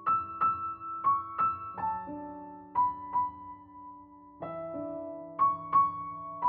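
Background piano music: a slow, gentle melody of struck notes over held lower chords, with a short pause near the middle.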